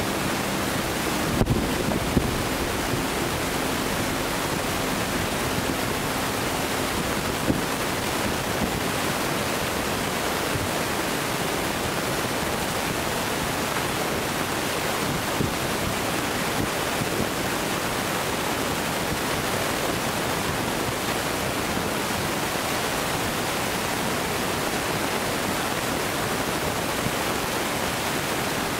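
A steady, even hiss of outdoor background noise, with a few dull distant fireworks booms about one and a half and two seconds in and a single one near seven and a half seconds.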